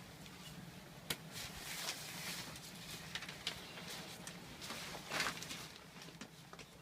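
Beach shelter being assembled by hand: fabric rustling and scattered clicks as a tent rod is guided along and snapped into the guide rings, with a longer rustle a little after five seconds in.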